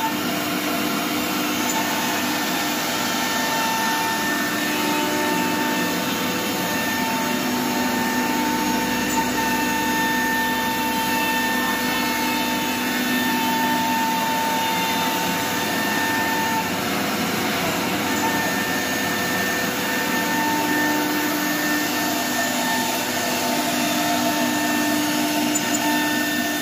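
Single-head 1325 CNC wood router running: a steady machine whine over a rushing noise, with the pitch of the whine fading in and out now and then.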